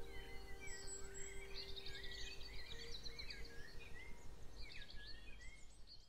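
Several small songbirds chirping and warbling, one with a rapid trill about a second and a half in. A few low held tones fade away around the middle, and the whole sound fades out at the very end.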